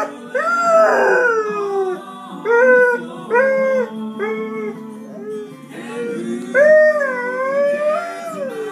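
Basset hound howling along to music, with drawn-out wavering howls that glide up and down. One comes right at the start and a longer one comes about two-thirds through and falls away at its end, over a song playing in the background.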